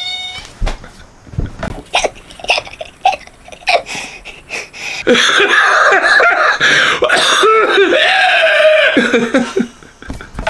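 A man coughing and laughing: scattered short coughs and sharp sounds, then a loud stretch of laughter lasting about four seconds from about halfway in.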